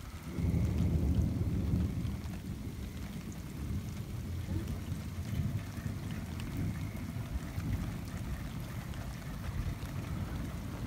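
Thunder rolling in suddenly about half a second in, loudest for the first couple of seconds, then rumbling on more quietly over steady rain.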